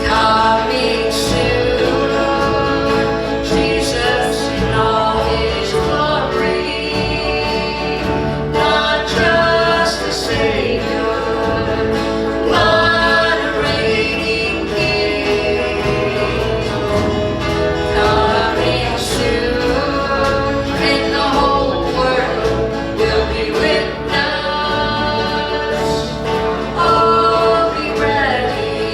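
Live worship band performing a gospel song, with voices singing over instrumental accompaniment.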